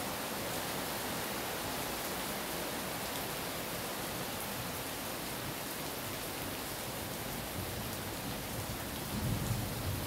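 Rain falling steadily on trees and broad banana leaves, an even hiss, with a brief low rumble about nine seconds in.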